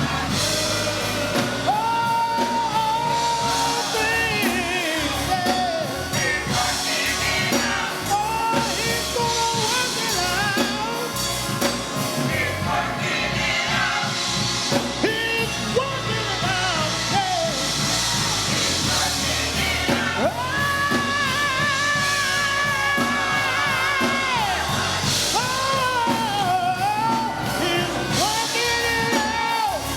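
Worship music with singing over a band: held, wavering vocal lines over drums and bass.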